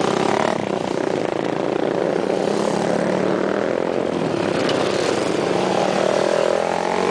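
Small motorcycle engines running as a group of bikes rides past one after another, over steady wind and road noise; an engine pitch rises near the end.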